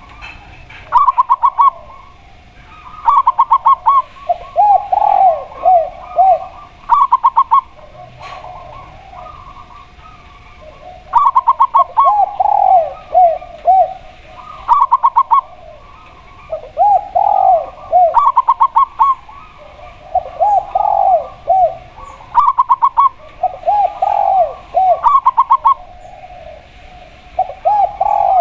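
A zebra dove (perkutut) and a spotted dove (tekukur) cooing back and forth. The higher calls come as quick runs of short, clipped notes, and the lower ones as a few longer, curving coos; one or the other sounds every couple of seconds.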